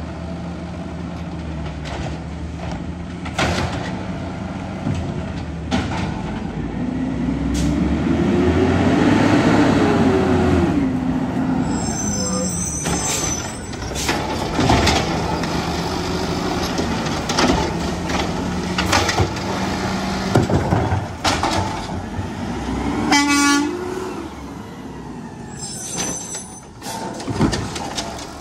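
Automated side-loader garbage truck at work: the diesel engine idles, then revs up and back down with a rising-and-falling hydraulic whine as the arm lifts and dumps a cart. Clanks and bangs of the arm and carts run through it, with short high squeals a few times.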